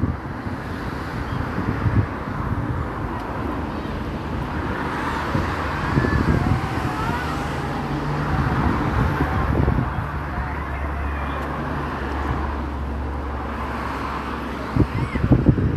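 Steady outdoor road traffic noise, with a vehicle engine's low steady hum for a few seconds in the second half.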